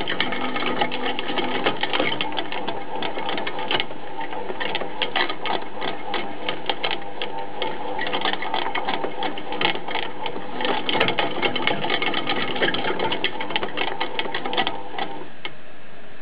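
A small machine running steadily with a dense rapid clicking over a steady hum, with a squeak. The clicking stops about a second before the end while the hum goes on.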